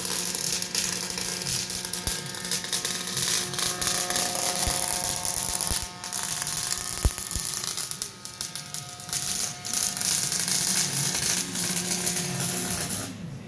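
Welding arc crackling and sputtering steadily, with short breaks about six and eight seconds in, cutting off sharply near the end.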